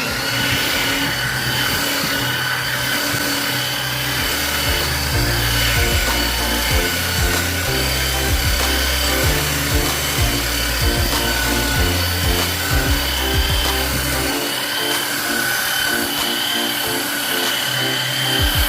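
A power tool running steadily on wood, its motor a constant high whine. Background music with a stepping bass line plays underneath and drops its bass about three-quarters of the way through.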